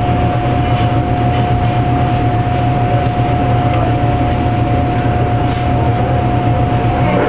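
Steady loud mechanical drone: a low hum with a thin, steady whine above it, unchanging throughout.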